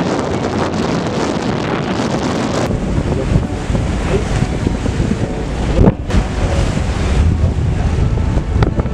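Wind buffeting the microphone aboard a moving boat, over a low rumble and the wash of choppy water.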